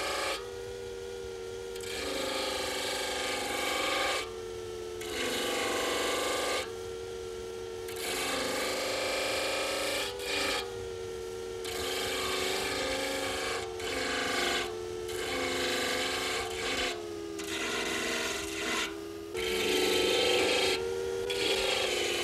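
Electric disc sander grinding a piece of ivory, the scraping coming in repeated passes of a second or two as the piece is pressed to the spinning disc and lifted off, over the motor's steady hum.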